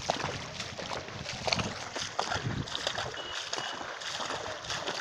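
Movement through floodwater: irregular splashing and knocking over a steady watery hiss.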